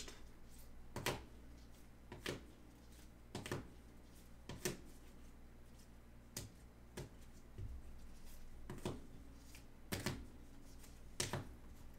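Light, sharp clicks and taps of rigid plastic card top-loaders being handled in gloved hands and set down one after another, about one a second.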